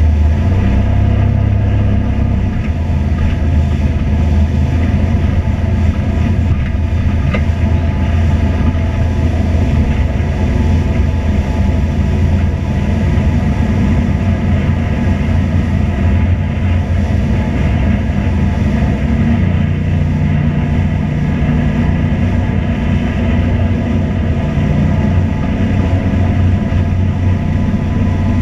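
Steady, loud engine drone, low and even, with a slight shift in its low pitch about twenty seconds in.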